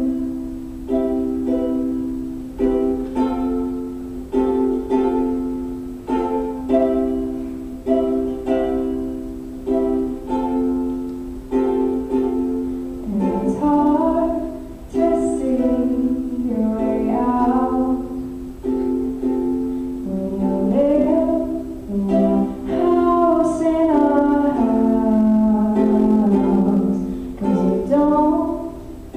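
A woman singing a slow song over an accompaniment of plucked chords on an acoustic string instrument. The chords come at an even, unhurried pace, and the voice rises and falls over them.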